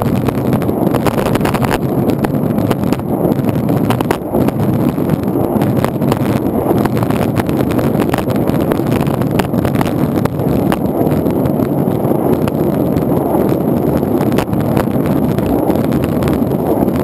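Longboard wheels rolling over asphalt, a steady rumble picked up close by a camera on the board's deck, with a few sharp clicks along the way.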